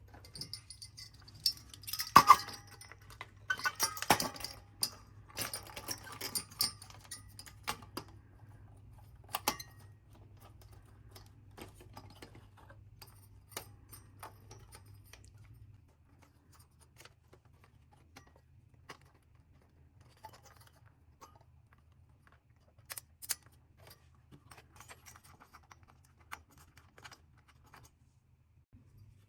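Small hard parts being handled: scattered clicks, clinks and rattles, busiest in the first five seconds, then sparser taps. A faint low hum underneath drops away about halfway through.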